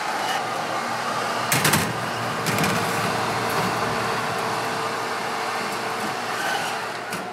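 A metal baking sheet of cookies is slid onto an oven's wire rack, clanking sharply about a second and a half in and again about two and a half seconds in. A steady fan-like whoosh runs underneath and stops just before the end.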